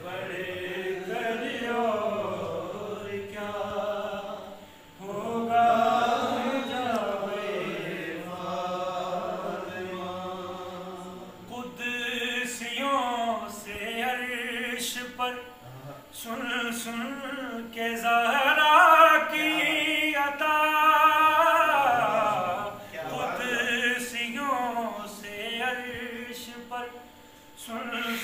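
Unaccompanied male voice chanting a devotional Urdu poem in long, ornamented melodic phrases with wavering held notes.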